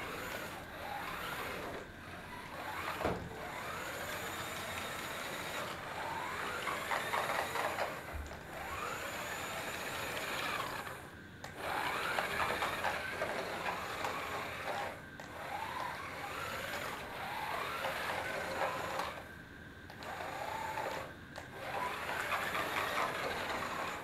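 Small DC motors of a cardboard remote-control toy auto rickshaw whining as it drives, the pitch rising and falling as the throttle is worked, with short pauses several times as it stops and starts.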